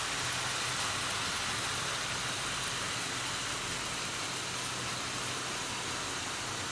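OO gauge model trains running on the layout: a steady rushing of wheels on rails and small electric motors as wagons and coaches pass.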